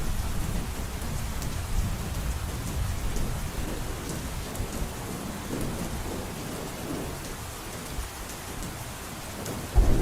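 Heavy rain drumming on a roof under a low rumble of thunder that slowly eases, with sharp drop ticks on top. Just before the end the rumble suddenly swells much louder.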